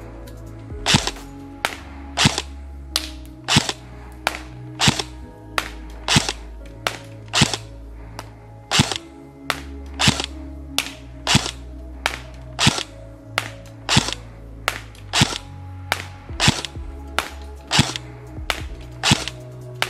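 Jing Gong M4 CQBR airsoft electric rifle with a version 2 gearbox firing single shots on semi-auto at a steady pace, about three shots every two seconds. Background music plays underneath.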